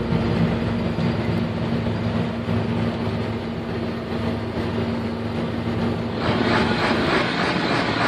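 New Holland combine harvester running under load, a steady engine and machinery drone heard inside the cab. About six seconds in it changes abruptly to a louder rush with a fast rhythmic clatter of the engine and threshing machinery heard outside the machine.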